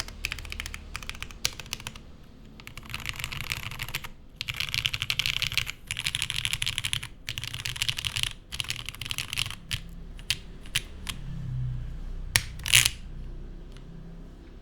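Typing on a Geonworks F2-84 mechanical keyboard with lubed Cherry Nixie switches on an aluminium plate and GMK keycaps. Fast runs of keystrokes broken by short pauses, then slower single key presses and one louder clack near the end.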